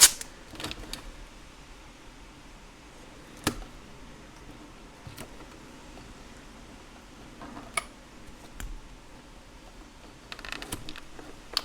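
Scattered light clicks and taps as the plastic case and parts of a Copal 227 flip clock are handled, with a short run of quicker small clicks near the end, over a faint steady hiss.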